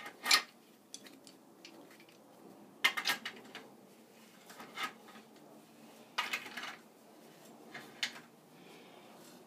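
Steel pipe wrench clinking and clattering against a black iron fitting as the fitting is turned onto freshly threaded pipe: a handful of separate metallic knocks a second or two apart.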